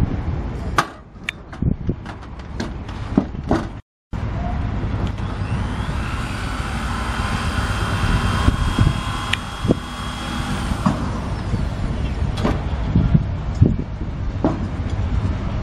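Corded electric screw gun running steadily for about six seconds from around five seconds in, driving a screw to fix a metal roof-panel clip. Before and after it come scattered clicks and knocks of metal parts being handled, with wind rumble on the microphone throughout.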